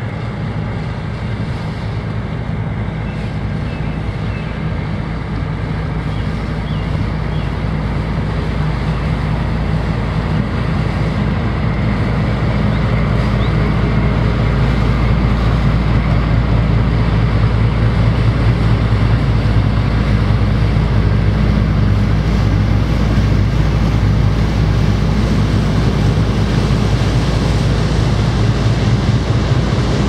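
Engines of a harbour tug and the cargo ship it is towing: a steady low drone with a deep hum, getting louder as the vessels pass close, with water wash and some wind on the microphone. Faint birdsong in the first few seconds.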